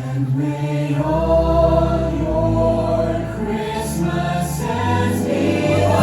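Christmas parade music: a choir singing long held notes over instrumental backing, coming in after a brief lull.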